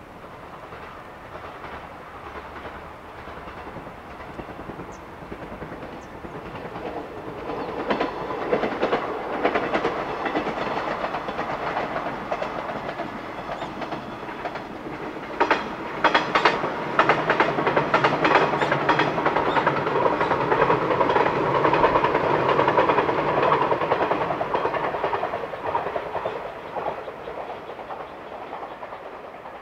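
A train passing by: its running noise builds, wheels clatter over rail joints in quick groups of knocks, and it then fades away near the end.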